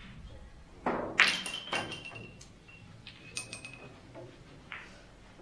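Billiard balls in a game of keglebillard. A dull knock about a second in is followed by a quick run of sharp, ringing clicks as the balls collide, then a few more clicks a couple of seconds later.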